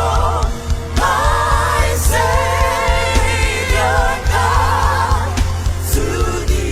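Live gospel worship music: a voice singing long held notes with wide vibrato over a band with a heavy pulsing bass.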